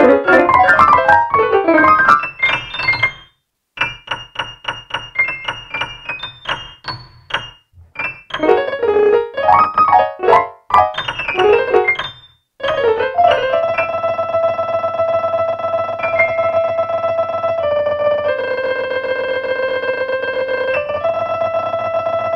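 Synthesized piano notes from the Shared Piano web app: dense clusters and runs of quick repeated notes broken by a few short silences, then, from about halfway, long held chords that change twice.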